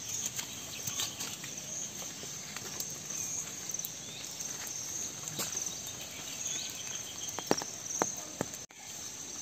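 Insects trilling steadily in a high, pulsing chorus, with scattered light clicks and rustles of someone moving through tall grass.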